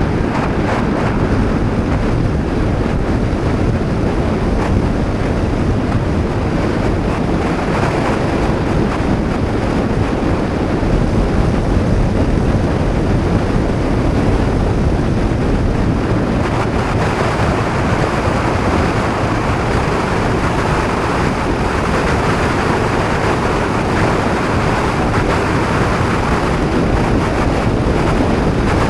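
Heavy, steady wind noise buffeting the action camera's microphone on a moving Honda PCX 125 scooter, with the scooter's running and road noise underneath.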